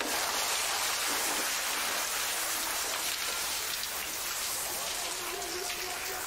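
Steady hissing swish of a pack of cross-country skis and poles gliding and striding on packed snow, with a faint voice coming in near the end.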